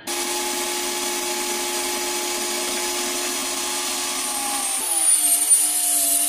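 Homemade table saw, a circular-saw blade set under a plywood table, running at speed with a steady whine. About five seconds in a length of wood is fed into the blade: the motor's pitch drops and wavers under the load and a bright, hissing cutting noise rises.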